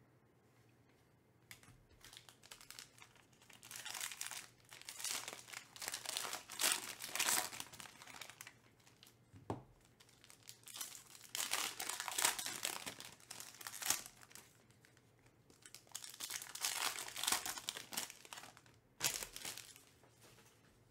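A foil trading-card pack crinkling as it is handled and torn open, in several bouts, with a couple of light knocks.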